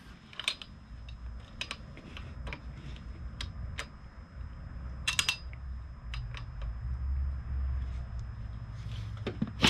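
Scattered sharp metallic clicks and clinks at irregular times from hand tools on the flywheel bolts, over a faint low rumble.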